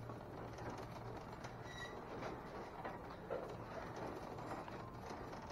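Faint store room tone: a steady low hum under scattered light clicks and rustles, with a brief high tone about two seconds in.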